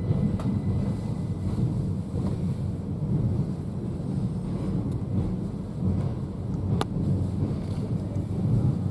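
Wind buffeting the microphone: a steady low rumble, with one sharp click about seven seconds in.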